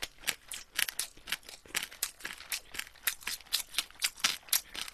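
Close-up chewing of a crisp laver (gim) wrap with rice and soy-marinated shrimp: a run of sharp crunches and crackles, about four to five a second.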